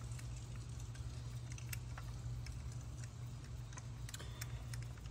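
Light, irregular metal clicks of a socket and extension turning head-stud nuts by hand onto the studs of a cylinder head, over a steady low hum.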